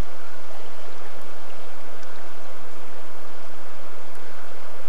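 Steady rushing of a river's current, an even water noise that doesn't change, with a low steady hum underneath.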